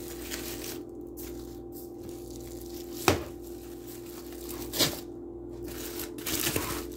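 Aluminium foil wrapper being pulled open and crinkled by hand, with two sharp crackles about three and five seconds in and a quick run of crinkling near the end.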